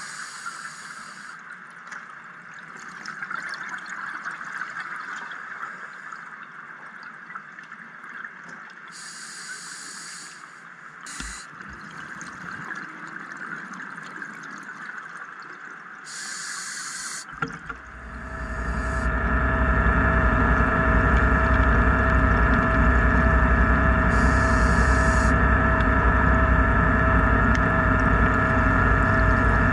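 Underwater sound picked up by a diver's camera: a steady hiss with a few short, high hissing bursts. About two-thirds of the way through, a much louder steady mechanical drone with a deep rumble and held tones sets in and keeps going.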